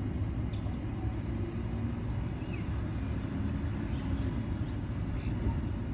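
Steady low rumble of city traffic, with a few faint, short, high bird chirps over it.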